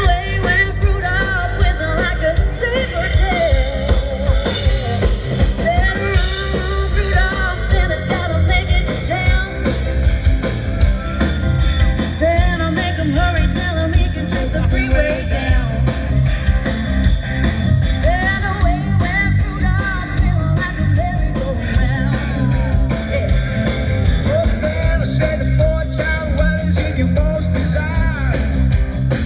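Live band playing a rock-and-roll song, with drums and singing.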